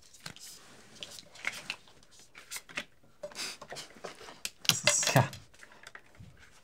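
Markers scratching and squeaking on paper answer cards in short, quick strokes, with a louder run of strokes about five seconds in.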